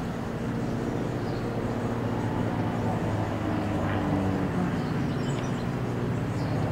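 Engines of a pair of small aerobatic planes flying in close formation, a steady drone that grows slightly louder over the first few seconds.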